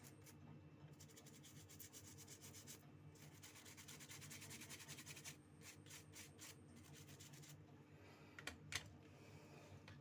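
Small brush scrubbing a wet mobile phone circuit board with thinner to clean off corrosion deposits from water damage, faint, in three runs of quick strokes. A couple of sharp taps near the end.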